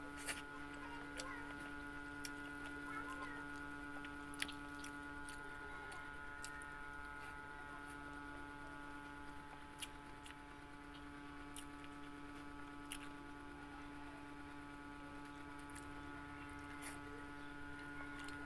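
A person chewing a mouthful of fried tofu and rice, with scattered mouth clicks and lip smacks every second or two, over a steady hum.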